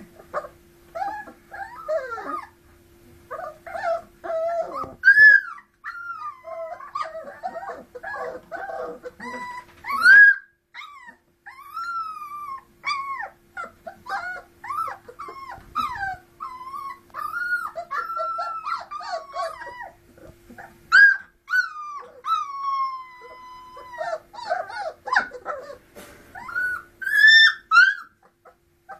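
Three-week-old puppies whimpering and squealing throughout in a string of short, high whines that rise and fall. A few louder yelps come through along the way.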